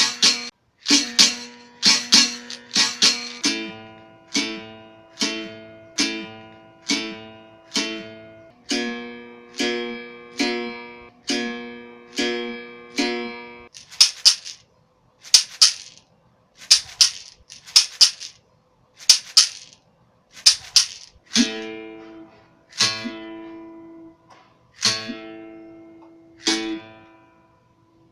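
Berimbau: the steel string struck with the stick, the caxixi rattle sounding with the strokes. It plays open and stone-pressed notes at two pitches, then from about halfway a run of buzzed strokes with no clear note, then pitched notes again near the end.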